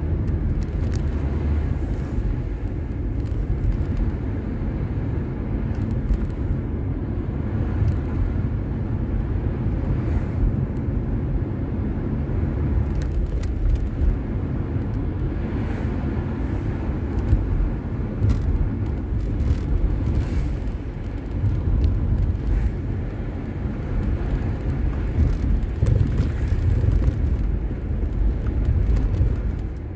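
Steady low rumble of a moving car, tyre and engine noise, picked up by the drive recorder's microphone inside the car.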